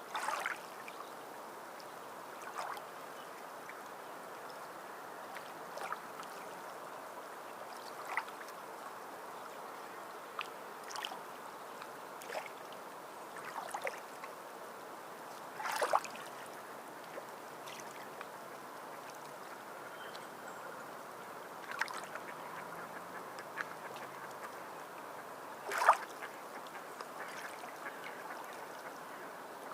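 Sea water lapping and gently splashing, a steady wash with short splashes every second or few, the loudest about sixteen and twenty-six seconds in.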